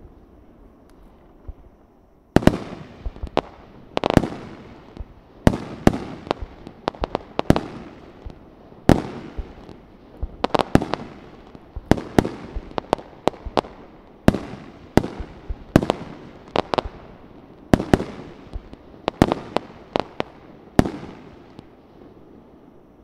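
Aerial fireworks shells bursting in a steady barrage of sharp bangs, one or two a second, each followed by a fading echo. The bangs begin about two seconds in and thin out near the end.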